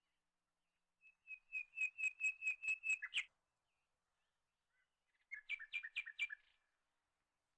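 A bird calling: a fast run of about ten repeated ringing notes, about four a second, then a second, shorter run of about six notes a couple of seconds later.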